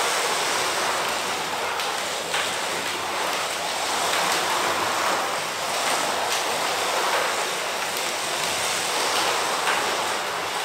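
Slot cars racing on a multi-lane track: a steady whirring hiss from the small electric motors and the cars running along the slotted track, swelling and fading as the cars come past.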